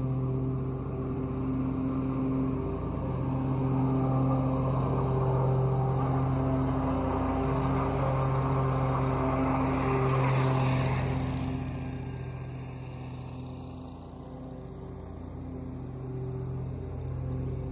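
Grasshopper 329 zero-turn mower with its big-block Vanguard engine running under load while cutting low and mulching dry leaves, a steady engine hum. It grows louder as the mower comes close, with the rush of blades and chopped leaves, then fades as it moves away and swells again near the end.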